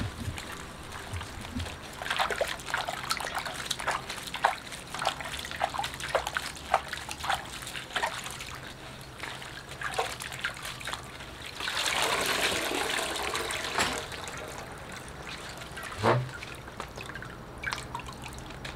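Halved napa cabbage being swished and dunked by gloved hands in a steel bowl of brine, the salt-water dip before salting for kimchi: many small splashes and drips, with a longer, denser run of splashing about two-thirds of the way through and one sharper splash after it.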